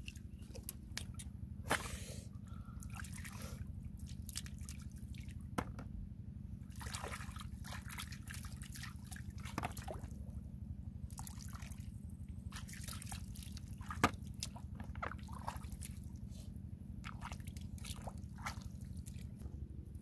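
Small splashes, drips and squishes of shallow muddy water as hands feel through it for snails, with a few sharp clicks. The sharpest click is about fourteen seconds in.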